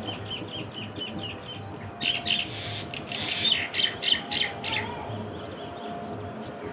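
Birds calling: a quick run of short chirps, then a burst of harsh, raspy squawks, over a steady high-pitched insect drone.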